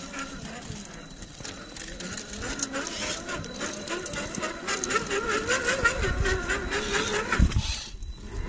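RC rock crawler with a 550 brushed motor climbing over rock: the motor and geartrain whine, wavering in pitch as the throttle and load change, louder in the second half. Small clicks and scrapes run under it, with a few low thumps near the end.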